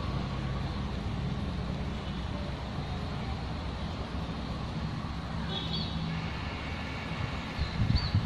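Steady low engine hum, with a few brief high chirps about five and a half seconds in and again near the end, and a short burst of low rumbling noise just before the end.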